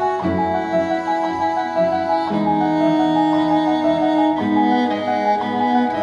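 Background music: sustained bowed-string chords that change every second or two.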